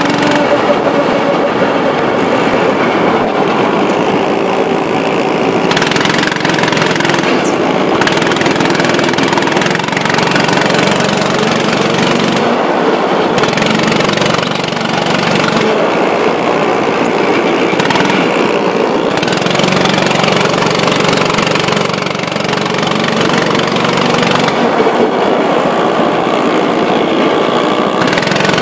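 Go-kart engines running at speed, their pitch rising and falling as the karts go through the corners.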